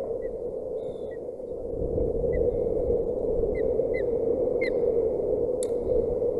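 Wind buffeting the nest-cam microphone: a low rumble over steady background noise that picks up strongly about two seconds in. Faint short bird chirps recur over it, and two sharp clicks come near the end.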